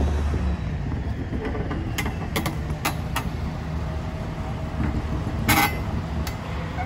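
Diesel shunting locomotive running with a steady low rumble. Several sharp metallic knocks and clanks sound over it, the loudest about five and a half seconds in.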